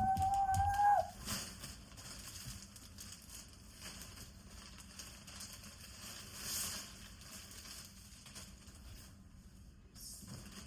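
Faint rustling and crinkling of plastic packaging and fabric as clothes are taken out and handled. A drawn-out, slightly rising whine, like a pet's howl, ends about a second in.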